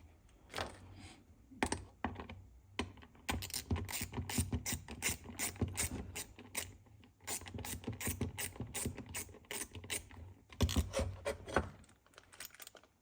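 Ratchet clicking in quick runs, several clicks a second, as a screw on the chainsaw's bucking-dog mount is turned with a driver.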